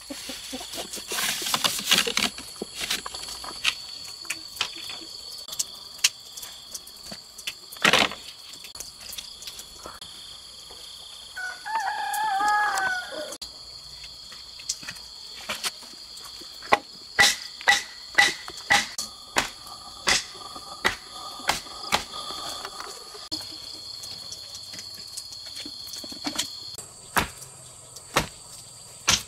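A rooster crowing once, about twelve seconds in, over steady high insect shrilling. Sharp knocks come scattered throughout, thickest in the second half.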